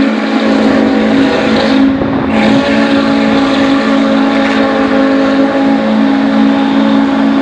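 Steam locomotive whistle blown long and steady: a loud, low chord of several notes held without a break.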